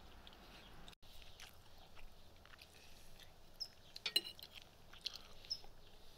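Faint tableware sounds: small scattered clicks, and a fork clinking against a ceramic plate with a brief ring about four seconds in. Two short high chirps come in between.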